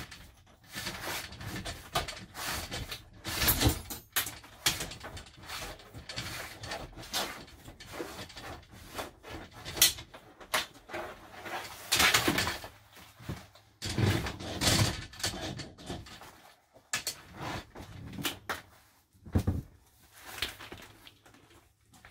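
A vinyl shower curtain being worked out of the rail of a motorhome's shower door frame and bunched up by hand: irregular rustles and scrapes of plastic, with sharp knocks against the frame.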